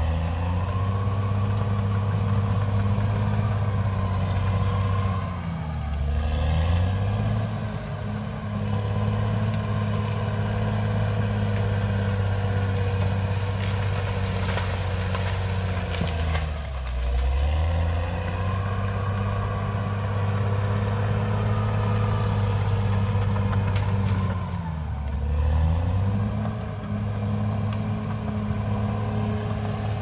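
Caterpillar D6R XL bulldozer's diesel engine running steadily with a deep note. Its pitch dips and recovers three times, about 5, 17 and 25 seconds in.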